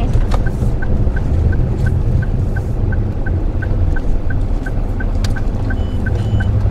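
Turn-signal ticking, about three ticks a second, over the steady low rumble of engine and road inside a 2013 Daihatsu Move Custom RS. Two short higher beeps come near the end.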